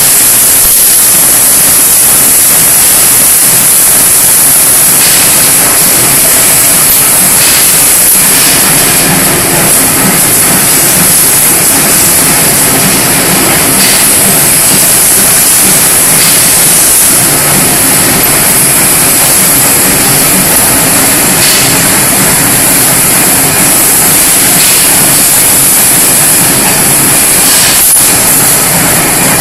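Automatic square-tube bending machine, driven by hydraulics and pneumatics, running: loud steady mechanical noise with a constant high hiss and a few short clicks as it works.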